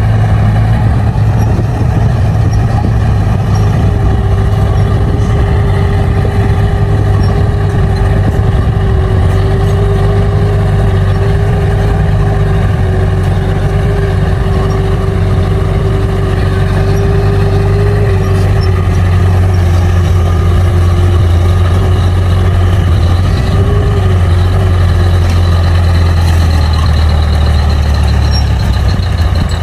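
Bulldozer's diesel engine running loud and steady at work, with a low drone and a steady whine that comes in about four seconds in and fades a few seconds before the end; the engine note drops slightly near the end.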